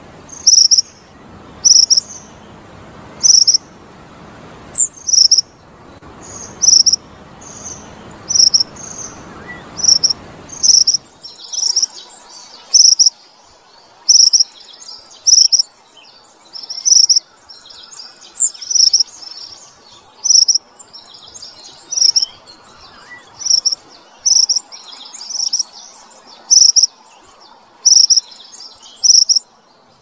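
Mantenan sepah padang, a minivet, calling: a loud, high, short chirp repeated steadily about once a second. After about eleven seconds, softer twittering fills the gaps between the chirps.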